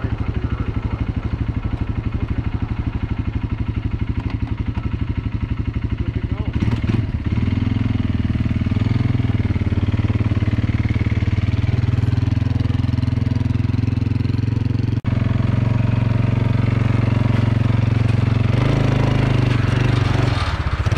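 2021 Kawasaki Brute Force 300 ATV's single-cylinder four-stroke engine running, first with an even putter of firing pulses, then louder and steadier from about seven seconds in as the ATV is ridden. A brief break about fifteen seconds in.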